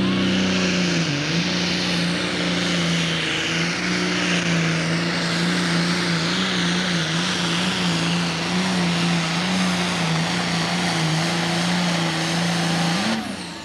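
Pro Stock pulling tractor's turbocharged diesel engine at full throttle under heavy load as it drags the pulling sled, a steady loud drone with a strong hiss over it and slight wavers in pitch. Near the end the note flicks up and then drops away as the throttle is closed at the end of the pull.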